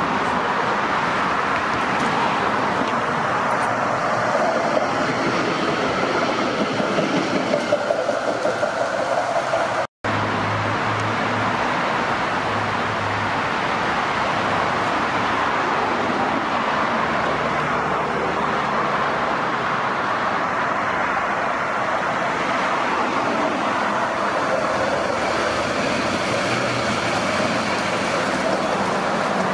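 Melbourne tram running along a street track, wheels rolling on the rails, mixed with road traffic. The sound breaks off for an instant about ten seconds in, then carries on.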